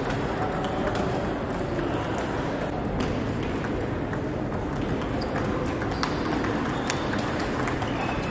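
Table tennis rally: the ball clicks irregularly off the rackets and bounces on the table. The echoing sports hall carries more ball clicks from other tables over a steady background hum.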